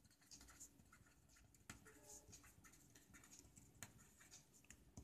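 Faint scratchy strokes of a felt-tip marker writing on paper, with a couple of light clicks.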